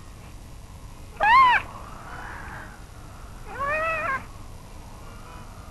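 Harp seal calling twice: a loud, high call about a second in and a softer, lower one a couple of seconds later, each rising and then falling in pitch.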